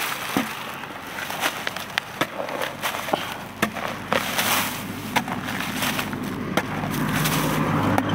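Metal digging spade chopping and scraping into dry, crumbly paddy soil and crunching through straw stubble, in irregular sharp strokes. A low steady hum builds in the background during the second half.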